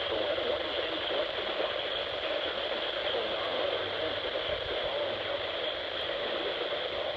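Steady hiss of static from a weather radio receiver, with no clear broadcast voice or tone coming through.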